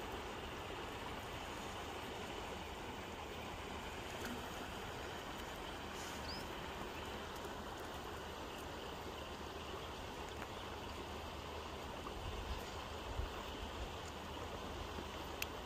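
Steady outdoor ambience by the water: an even hiss with no clear single source. A few low rumbles of wind on the microphone come near the end.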